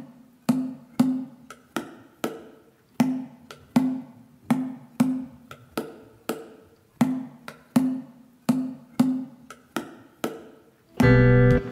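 Music intro of solo hand percussion: sharp, dry strikes at about one and a half a second, alternating a low pitched knock with a higher one. A loud guitar part comes in just before the end.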